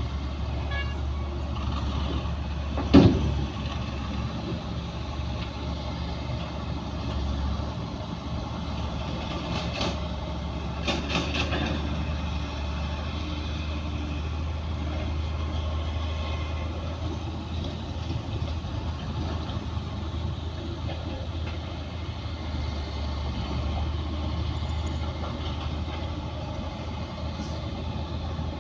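Bulldozer's diesel engine running steadily with a low drone. About three seconds in, a single loud sharp bang stands out, and a few smaller clanks follow around ten to eleven seconds in.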